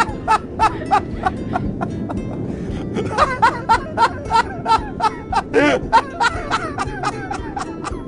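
Hearty human laughter in quick repeated bursts of about four a second over background music. The laughter pauses about two seconds in and then picks up again.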